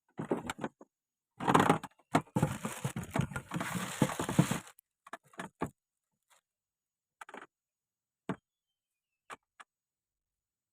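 Handling noises: a few sharp clicks and knocks, with a longer stretch of rustling and scraping in the first half, then short scattered knocks.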